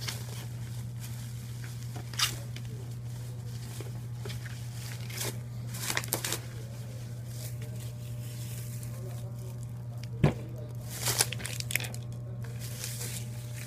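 Plastic packaging being handled: scattered crinkles and rustles, with one sharp knock about ten seconds in, over a steady low hum.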